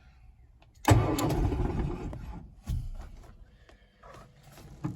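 1968 VW Beetle's air-cooled flat-four engine cranked by its starter and starting about a second in, loud for about a second and a half and then quieter. It turns over readily with a new starter relay fitted to cure its hard starting.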